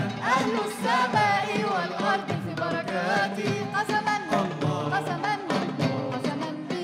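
Arabic devotional ensemble music with an oud among the instruments: a melody of wavering, sliding notes over steady low tones.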